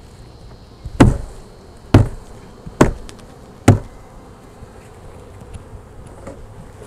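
Four sharp knocks about a second apart as a plastic nuc box is jarred to shake its last honeybees into the hive, with honeybees buzzing throughout.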